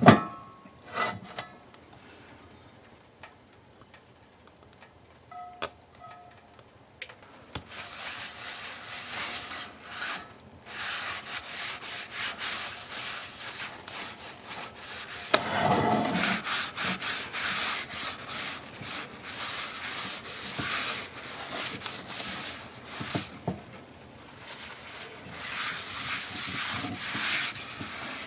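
A few scattered knocks and clicks, then from about eight seconds in, repeated rasping strokes of a tool rubbing on wood.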